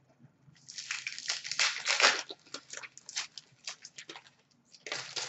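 Card pack wrapper crinkling and rustling as hands dig into an opened box of hockey card packs: a dense burst, then lighter crackles, and a short burst again near the end.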